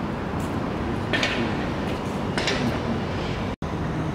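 Steady outdoor street background noise, with faint distant voices now and then. There is a brief dropout a little before the end.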